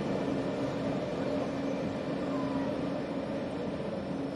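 ÖBB Class 1116 Taurus electric locomotive hauling Railjet coaches along the platform: a steady electrical hum from the traction equipment, cutting in and out, over the rumble of wheels on rail, easing slightly as the train moves away.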